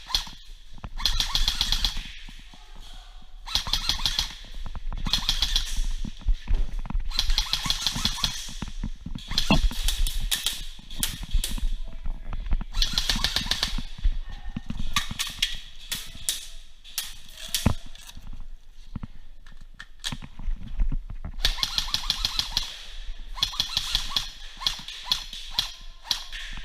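Airsoft guns firing in rapid full-auto bursts, each a second or two long, again and again with short pauses between.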